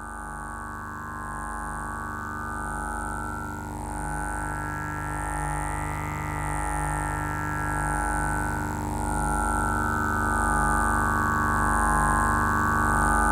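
Eurorack modular synthesizer drone played through small desktop monitor speakers: a steady, layered tone whose upper band slowly swells and fades every few seconds over soft repeating low pulses, growing gradually louder.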